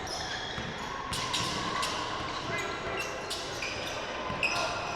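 Basketball game in a gym: a ball bouncing on the hardwood floor, with short high squeaks of shoes on the court and voices in the background.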